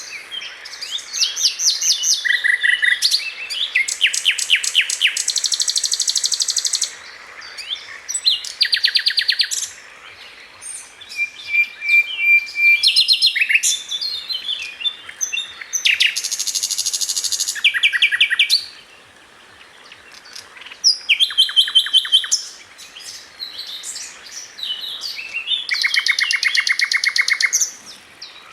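A small songbird singing: repeated phrases of rapid high trills and chirps, each a second or few long, with short pauses between them.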